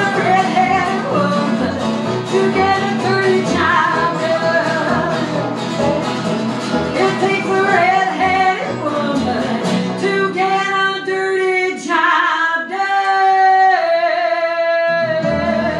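Live acoustic country band playing: acoustic guitar, banjo and upright bass behind a woman singing lead. About ten seconds in, the bass line stops and she holds long wavering notes over sparse accompaniment.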